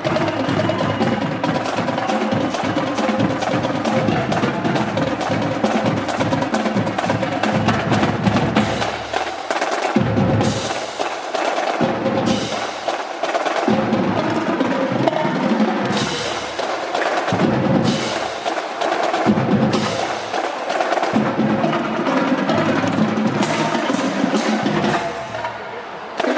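A marching band playing, led by its drum section: rapid snare drum strokes over bass drum beats, with the bass beats coming through strongly from about ten seconds in.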